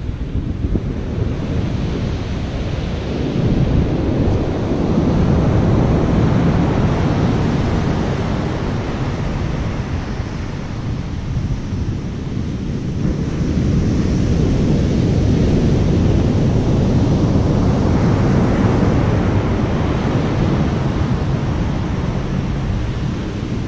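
Big surf breaking on the beach, a loud, steady rush of waves that swells louder twice, with wind blowing on the microphone.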